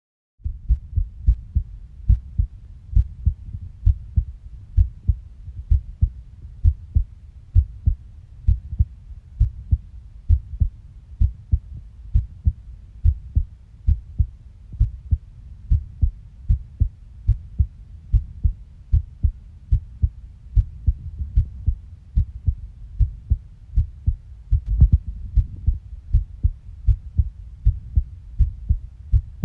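A heartbeat recorded close up: a steady, regular run of low, dull thumps.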